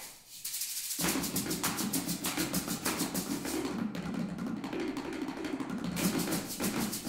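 Percussion ensemble playing carved hollow pumpkins with drumsticks: a fast, dense stream of hollow knocks. It starts about a second in after a short pause, and the sharp stick clicks thin out for about two seconds in the middle.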